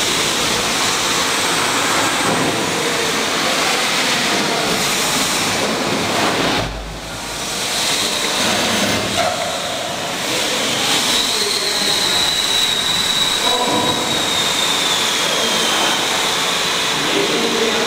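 Coal-mine steam winding engine running, a loud, steady mechanical noise that fills the engine hall. In the second half a faint high whine drifts slightly downward.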